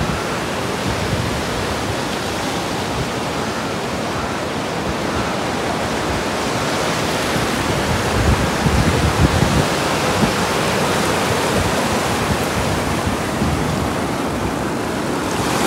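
A steady rushing noise with an uneven low rumble that swells slightly about halfway through.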